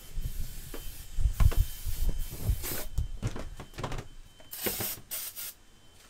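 Bumps, knocks and rustling from a handheld camera being carried and handled, with dull thumps in the first half and short rustling hisses near the end.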